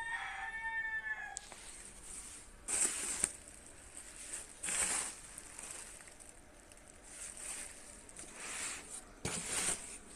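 A rooster crowing, the tail of its call falling away in the first second and a half, followed by several short hissing noises spaced a second or two apart.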